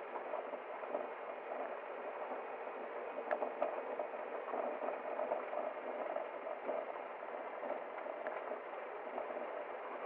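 A small stream babbling steadily, with a few faint ticks of water around the middle.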